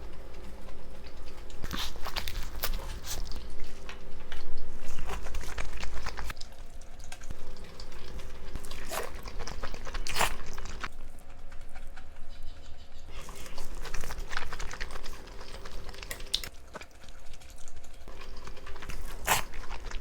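Close-miked eating sounds: chewing and biting, with sharp crunches and clicks at irregular moments.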